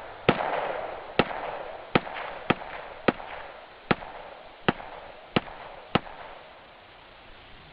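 A string of nine gunshots fired in quick succession, each less than a second after the last and each followed by a short echoing decay. The firing stops about six seconds in.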